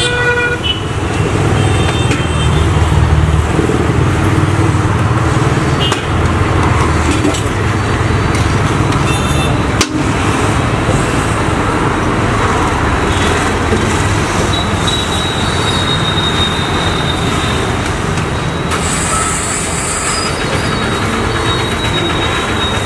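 Steady road traffic noise, a continuous low rumble of passing vehicles. A thin, steady high tone joins it about fifteen seconds in.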